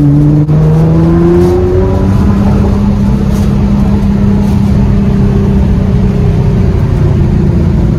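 Nissan GT-R's engine pulling hard under acceleration, heard from inside the cabin. Its note rises over the first second or so, with a brief break about half a second in, then holds steady at high revs.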